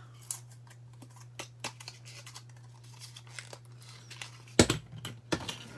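Hands struggling to open the package of a small eyeshadow tin: crinkling and tearing of the wrapping with scattered small clicks, and one louder knock about four and a half seconds in.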